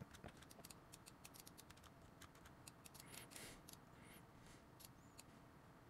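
Near silence with faint, irregular clicks of a computer mouse being used.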